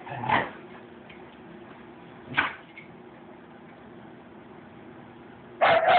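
A Doberman jumping at a toy on a hard shop floor: two sharp thumps about two seconds apart, over a steady background hum. Near the end, a loud stretch of sound begins.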